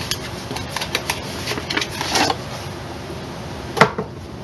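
Screwdriver-set case being handled and taken out of its box: light rustling and scattered small clicks, with one loud sharp click near the end.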